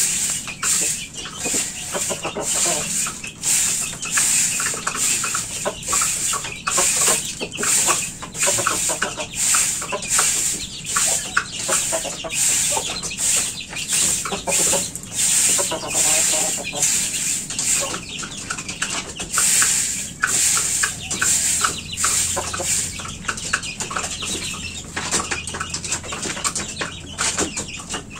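Chickens clucking and chicks peeping in a coop, with a rooster's wings flapping as it flies up onto a cage, over a steady, fast, high-pitched pulsing chirr of about two or three pulses a second.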